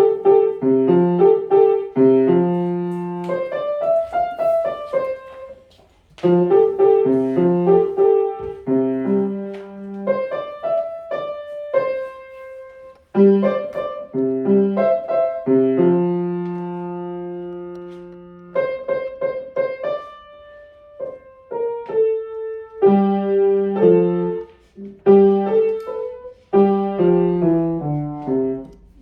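Solo piano playing a simple melody over chords in short phrases, with brief breaks between them. Past the middle, one phrase ends on a chord held until it fades out.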